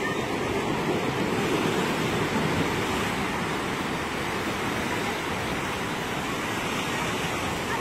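Heavy ocean surf surging over and pouring off the edge of a concrete seaside pool platform: a steady rushing of breaking waves and cascading water, a little stronger in the first few seconds.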